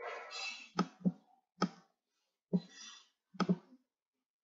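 Computer mouse buttons being clicked: about six short, sharp clicks at an uneven pace, two of them in quick succession near the end, with a soft rustle between them.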